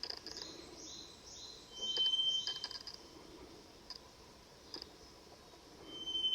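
An unidentified high-pitched call in a beech forest: a quick run of about six short notes over about two seconds, with a thin steady whistle at its end and again near the end.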